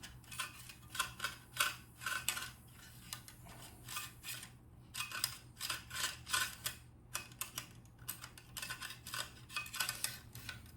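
Thin metal rods clicking and scraping irregularly against the metal spring-anchor parts of a Daisy air rifle, working to free a spring anchor jammed under heavy spring pressure in the cocked position.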